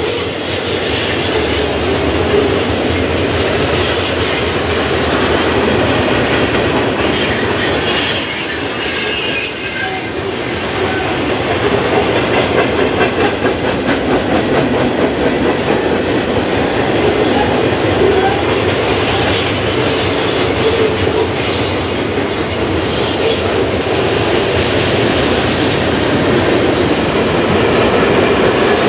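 Freight train cars (boxcars, covered hoppers and tank cars) rolling steadily past on steel rails, a continuous loud rumble with high-pitched wheel squeals that come and go.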